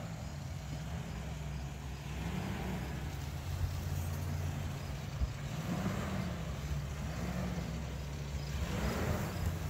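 Mazda pickup truck's engine running at low speed as the truck crawls over a sandy trail, the revs swelling briefly about four times.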